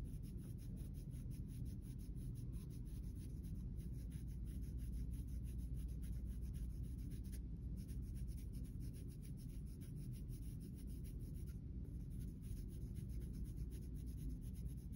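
Red colored pencil scratching on paper in rapid, light back-and-forth shading strokes, building up a darker tone along the edge of a shape.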